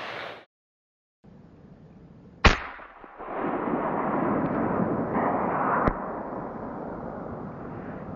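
A single rifle shot about two and a half seconds in, a follow-up shot into a wounded bull moose. It is followed by a few seconds of rushing noise and a fainter click near six seconds.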